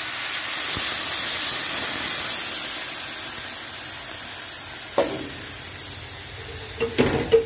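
Hot water poured into a hot pot of seared oxtail, sizzling and hissing as it hits the pan, the hiss slowly fading. A few sharp clicks about five seconds in and near the end.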